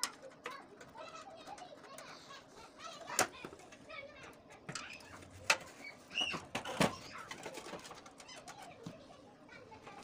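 Sheet-metal gas heater casing being handled and fitted together, giving three sharp metal knocks about three, five and a half and seven seconds in, among smaller rattles. Birds call in the background.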